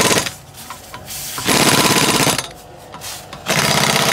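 Air Torque pneumatic impact wrench hammering on a car wheel's lug nuts, in three short bursts of about a second each: one stopping just after the start, one in the middle and one near the end.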